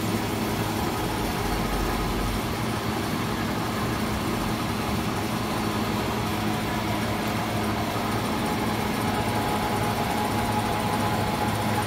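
Leblond Regal Servo Shift engine lathe running with its spindle turning: a steady mechanical hum of motor and headstock with faint steady tones in it.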